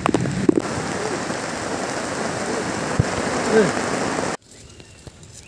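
Heavy rain pouring down steadily in a storm. It cuts off suddenly about four seconds in, leaving a much quieter background with a few faint chirps.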